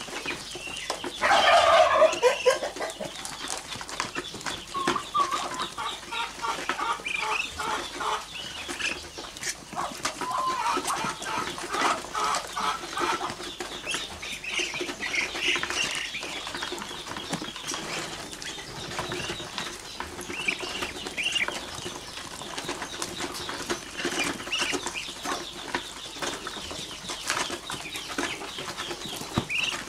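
A flock of young Muscovy ducks calling with many short peeps and trills while they feed, with one louder, falling call near the start.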